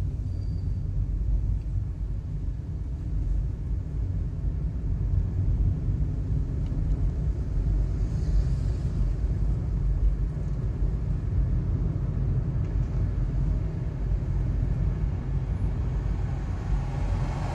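Steady low rumble of a car's engine and tyres heard from inside the moving car, with a brief hiss about halfway through.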